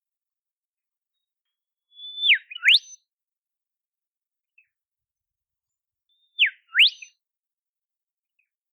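Olive whistler calling twice, about four seconds apart. Each call is a clear whistle: a held high note that drops steeply, then a quick whistle sweeping up high.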